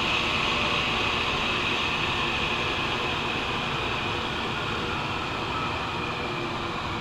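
Steady whirring hiss of a running electric shop machine, slowly getting quieter.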